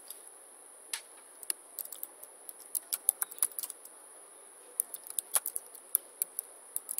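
Computer keyboard keys clicking in quick irregular runs as a sentence is typed, with a pause of about a second midway.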